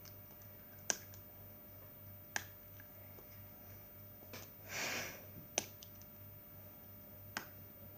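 A few sharp, isolated clicks and taps from small plastic items being handled, with a brief rustle a little before the middle, over a faint low steady hum.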